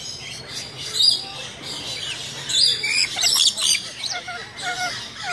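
Rainbow lorikeets giving sharp, high-pitched screeches, loudest about a second in and again in a cluster around three seconds, with a quick run of short chirps near the end.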